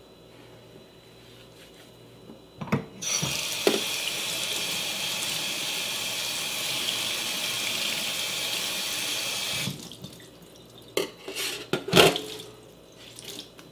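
Kitchen tap running steadily for about seven seconds, with a couple of sharp knocks as it starts. It cuts off suddenly, and a few more knocks follow, the loudest near the end.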